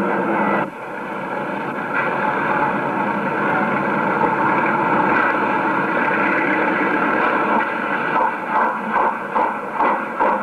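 Steam locomotive hauling a train: a steady rush of running noise that breaks off abruptly just under a second in and picks up again. From about eight seconds the exhaust beats stand out, about two a second.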